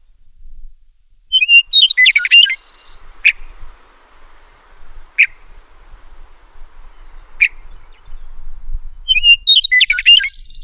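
Western meadowlark singing: two song phrases about eight seconds apart, each a brief whistled opening running into a quick jumble of warbled notes, with three short single notes spaced evenly between them.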